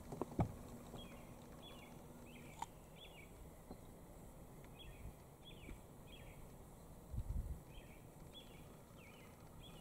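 Faint rural ambience with a steady series of short, high chirps repeating about once a second, sometimes in pairs. A low thump comes about half a second in, and a brief low rumble about seven seconds in.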